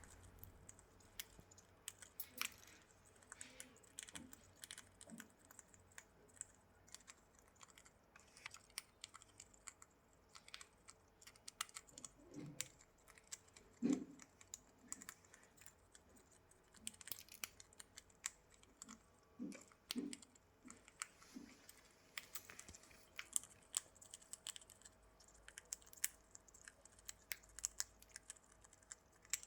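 Parrots eating seed-based bird food: a continuous run of quick, irregular clicks and crunches as their beaks crack and husk the seeds, with a few short soft low sounds mixed in around the middle.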